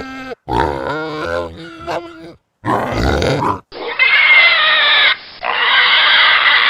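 Pigs grunting and squealing: a few short pitched calls, then loud, shrill squealing for about three seconds with a brief break in the middle.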